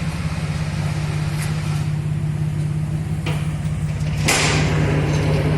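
Chevrolet Omega Fittipaldi's 3.6 V6 idling steadily through a modified exhaust: intermediate mufflers removed, two large turbo mufflers, and an H-pipe crossover. A loud hiss starts about four seconds in and carries on over the idle.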